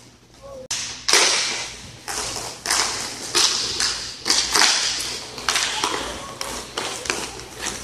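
Inline hockey sticks and puck clacking on a plastic tile rink floor: a run of sharp knocks about every half second, each echoing in the rink.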